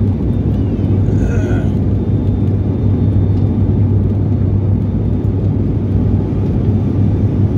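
Steady drone of a turboprop airliner heard from inside the passenger cabin in cruise or descent: constant engine and propeller noise with a strong, even low hum.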